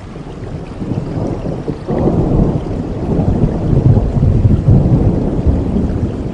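Rain falling in a forest with a low rumble of thunder that swells about two seconds in and keeps rolling.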